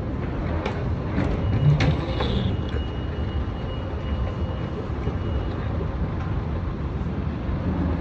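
Steady low rumble of a vehicle in motion, with a few clicks and knocks about one to two and a half seconds in.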